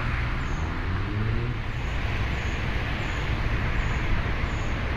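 Steady outdoor background noise: a low rumble and hiss of distant road traffic.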